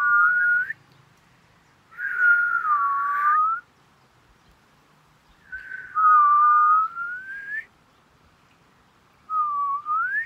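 Two people whistling together, two pitches sounding at once, in short phrases with pauses of about two seconds between them; the last phrase glides upward.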